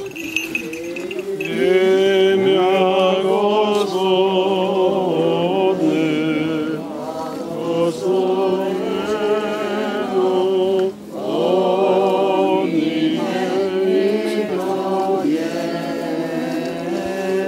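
A group of people singing a Byzantine-rite church hymn, the melody carried over a steady low held note, with a short pause about eleven seconds in.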